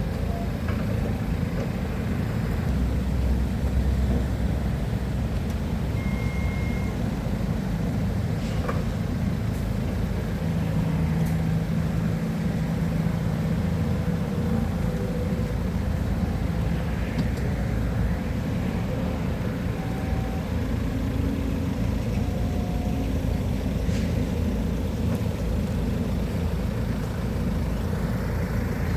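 Diesel engine of a piece of heavy construction equipment running steadily, with a few faint clicks and brief tones over it.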